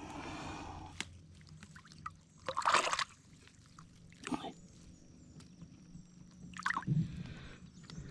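Water sloshing and splashing in a few short bursts, the loudest about two and a half seconds in, with a faint steady low hum underneath.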